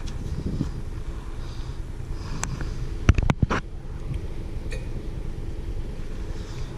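Stick-on wheel weights being handled as their adhesive backing is peeled off: a few sharp clicks and taps, loudest in a quick cluster about three seconds in, over a steady low hum.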